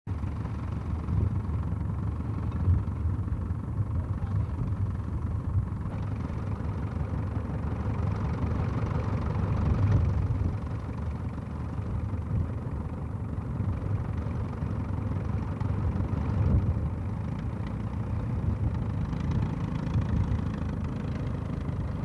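Tractor engine running steadily under load as it pulls a plough through the soil, a deep continuous engine note that swells slightly about ten seconds in.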